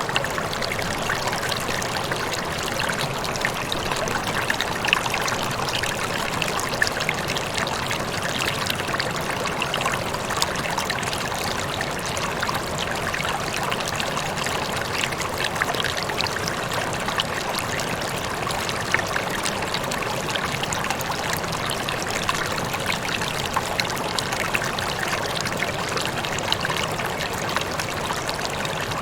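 Rippling water running steadily, a continuous flow speckled with many small trickling splashes.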